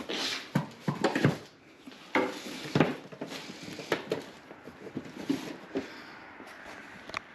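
Irregular clicks, knocks and clattering of hard objects being handled, a dozen or so separate strikes of varying loudness.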